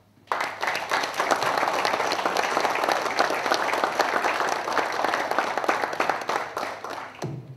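An audience applauding: many people clapping densely. The applause starts a moment in and dies away near the end.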